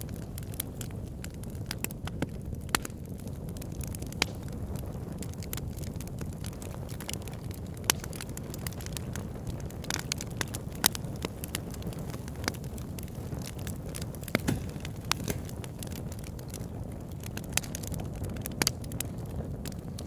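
Fire crackling: a steady low rumble with irregular sharp crackles and pops.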